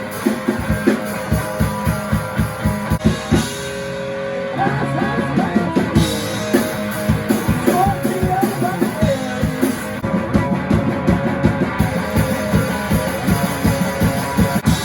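Rock music: electric guitar and drum kit playing together, with a steady, dense beat that drops out for about a second around four seconds in while notes ring on.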